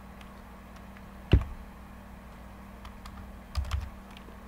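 Computer keyboard typing: one sharp keystroke about a second in and a quick cluster of keystrokes near the end, with a few fainter taps between, over a faint steady hum.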